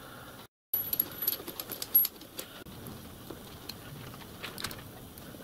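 Small metallic clicks and taps as steel change gears, washers and screws are handled and fitted by hand on a small lathe's gear train. The clicks come thick for a second or so, then thin out to a few faint ticks.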